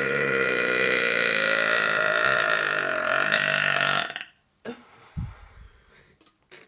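A woman's long, loud belch, held for about five seconds and cut off sharply about four seconds in. A few faint knocks follow near the end.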